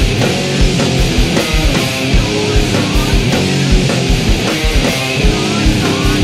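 Loud post-hardcore rock from a studio recording: distorted electric guitars over bass and a steady drum beat.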